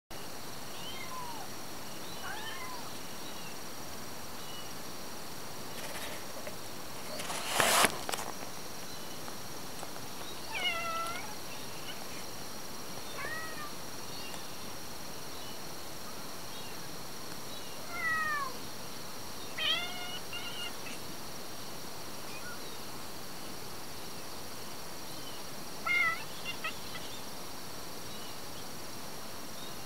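Kittens meowing outdoors: short, high, thin calls that come every few seconds, sometimes two or three in quick succession. About eight seconds in there is a brief loud burst of noise, like a rustle.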